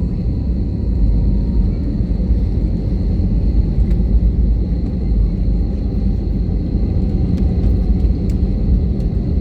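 Steady low rumble of an Airbus A320's engines and airframe heard from inside the passenger cabin, with a faint steady high whine over it.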